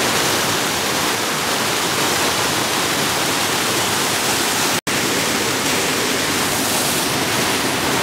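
Steady rushing of a small creek waterfall, water pouring over a rock ledge. The sound drops out for an instant just under five seconds in.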